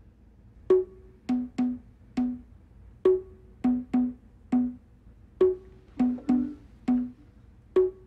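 Hand drums playing alone in a slow, repeating two-pitch rhythm: one higher stroke followed by three lower ones. The figure starts a moment in and comes round about every two and a half seconds.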